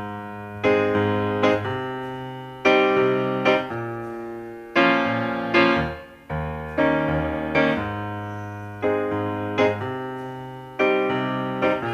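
Solo piano playing a slow song intro: sustained chords struck in pairs, about one every second or so, each left to ring and fade before the next.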